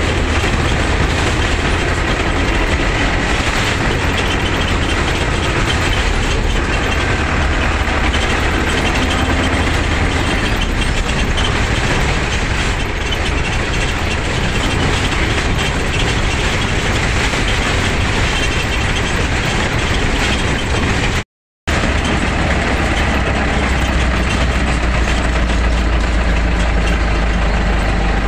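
Bus being driven, heard from inside the driver's cab: the engine and road noise run steadily. The sound drops out completely for a moment about three-quarters of the way through.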